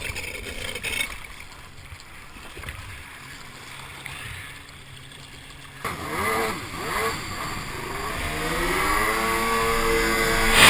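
Stand-up jet ski's two-stroke engine, faint at first. About six seconds in its pitch wavers up and down, then from about eight seconds it revs up steadily, rising in pitch and getting louder.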